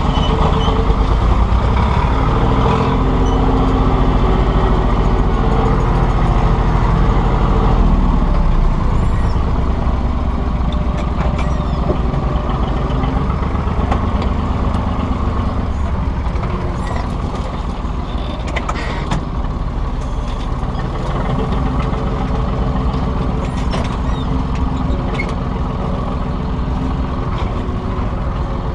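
Tractor engine running under load while pulling a seed drill, heard from inside the cab. It runs at a steady pitch for about eight seconds, then rougher, with a few faint clicks.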